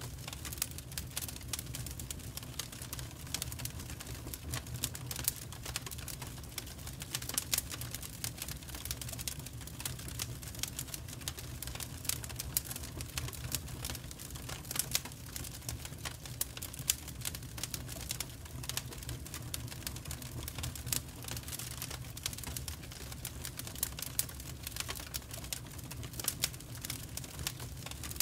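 Wood log fire burning in an open fireplace grate, crackling with many irregular sharp pops and snaps over a low steady rumble.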